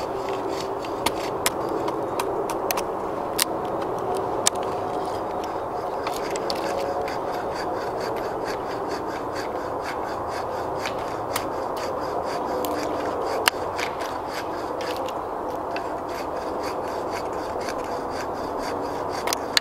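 Knife blade scraping down a wooden stick, shaving off thin curls for a feather stick, with occasional sharp clicks over a steady background hiss.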